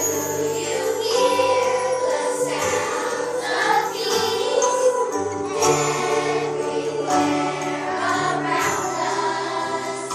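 Choral music: a choir singing over instrumental accompaniment with held bass notes.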